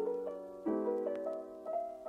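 Background piano music: a melody over chords, with a new chord struck about two-thirds of a second in.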